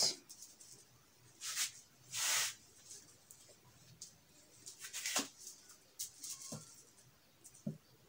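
A small bag of dry beans being untied and opened by hand, rustling in a few short bursts with quiet in between, and a couple of faint clicks near the end.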